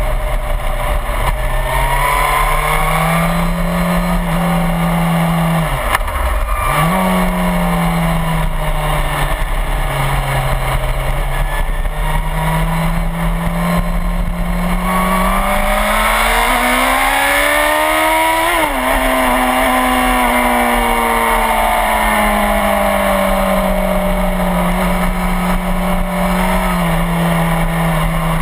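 Suzuki GSX-R1000 inline-four sportbike engine under way on track, heard from a camera on the bike's tail over a steady rush of wind. The engine note dips sharply about six seconds in and quickly picks back up. About halfway through it climbs in a long rising rev, drops suddenly at a gear change, then falls slowly.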